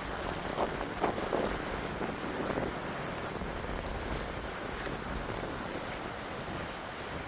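Sea waves washing against the shore, with wind rumbling on the microphone; a few brief louder splashes in the first few seconds.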